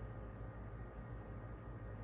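Steady low hum under a faint hiss, with no distinct event: room tone.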